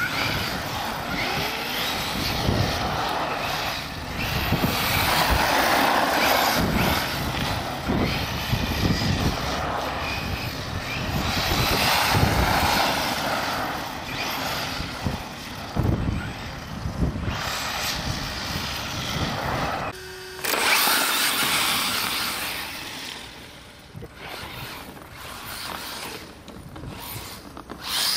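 Acme Trooper 3S electric radio-controlled truck driving on a dirt track, its motor whining and its tyres scrabbling over loose ground, rising and falling with the throttle. The sound breaks off briefly about twenty seconds in, then carries on.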